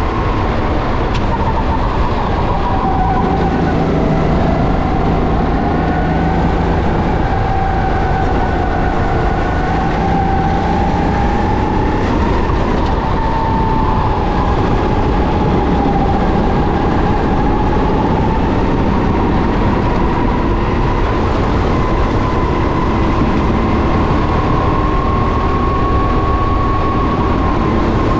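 Racing kart engine running hard on track, its pitch rising and falling slowly with the throttle and climbing near the end.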